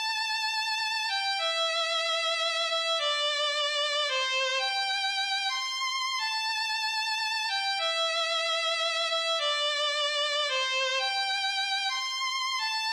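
Background music: a solo violin melody of held notes with vibrato, stepping down in short runs and then leaping back up.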